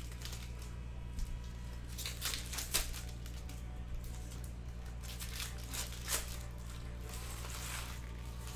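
Foil wrappers of Panini Mosaic football card packs crinkling and tearing as packs are opened and cards are handled, in short crackly bursts. A steady low hum runs underneath.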